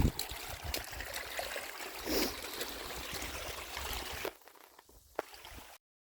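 Stream water flowing steadily, with scattered small clicks and knocks over it; the sound drops off sharply a little after four seconds in and cuts off shortly before the end.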